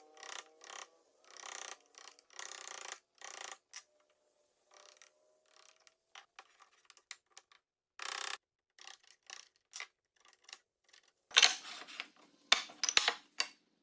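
Hand work on wood: a run of short scraping strokes and small clicks, with a few loud, sharp knocks near the end.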